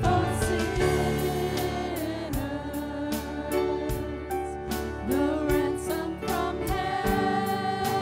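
Live contemporary worship band: several women singing the chorus together over a band, with drums keeping a steady beat.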